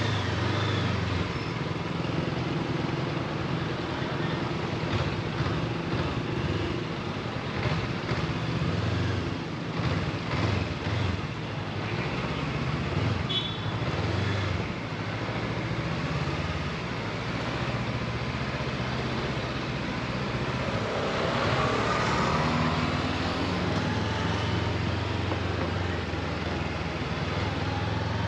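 A motor vehicle's engine running steadily under road and traffic noise, with a rising tone about 21 seconds in, as of an engine picking up speed.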